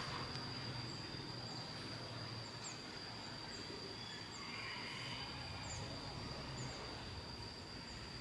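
Quiet outdoor ambience: a few brief, faint bird chirps over a steady high-pitched whine and a low background rumble.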